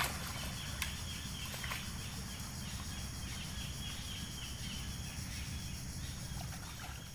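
Mangrove swamp ambience: a small creature's high chirping call repeated a few times a second over steady low background noise, with a couple of faint clicks.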